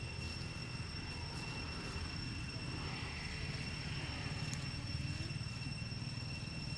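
Steady low engine-like rumble with two faint, steady high-pitched tones above it.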